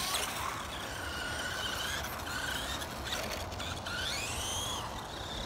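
Electric motor and drivetrain of a Dromida SC4.18 RC short course truck whining as it drives. The pitch holds steady for a while, then climbs sharply about four seconds in.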